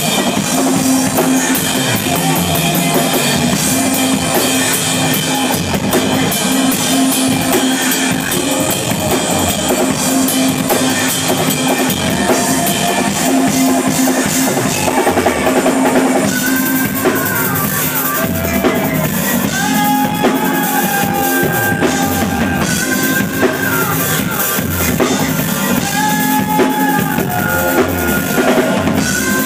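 A live band playing loud instrumental music, driven by a drum kit with steady cymbal wash and bass drum. About halfway through, the cymbals get brighter and a melody of held notes comes in over the beat.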